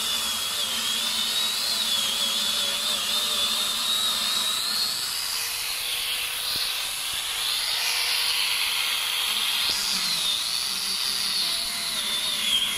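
A 4-inch electric angle grinder fitted with a chainsaw bar and chain, running at full speed and cutting through a tree trunk. Its high motor whine wavers up and down as the chain bites into the wood and eases off.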